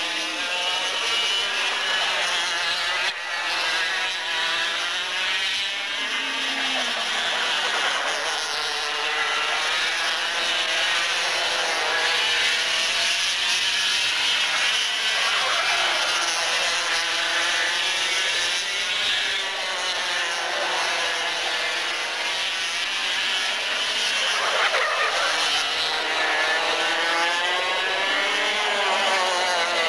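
Two-stroke Parilla racing kart engines, several at once, their notes rising and falling in pitch as the karts accelerate and brake through the corners.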